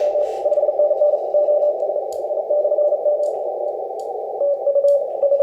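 Morse code tone keyed on and off over steady band hiss from an HF transceiver's speaker, in short and long elements with a pause of about a second past the middle. No splatter or interference from a second radio transmitting 100 watts 20 kHz below is heard, which the operator finds remarkable.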